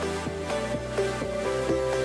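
Background music: sustained pitched tones with notes struck in a steady rhythm, about four a second.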